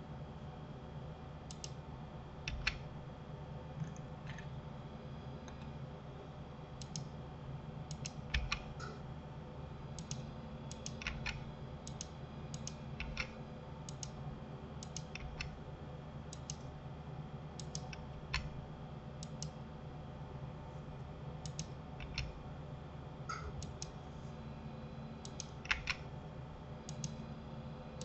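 Scattered, irregular clicks of a computer mouse and keyboard keys while editing in 3D software, over a steady low hum.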